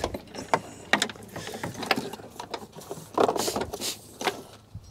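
Hands working in a car's rear storage well: irregular clicks and knocks, and a louder scraping rustle about three seconds in as electrical wire is pulled and moved around trim panels.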